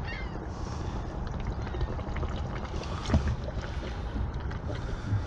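A steady low rumble with a single knock about three seconds in.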